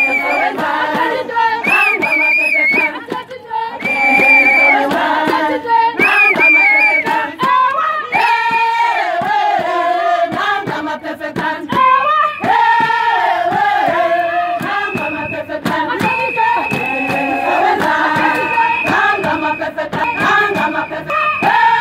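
A crowd singing and chanting a protest song together, with a whistle blown over it in short repeated blasts at first and in longer held blasts in the last few seconds.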